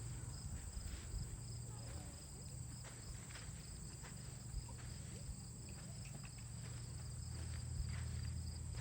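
Steady high-pitched insect chirring over a low rumble, with a few faint scattered taps.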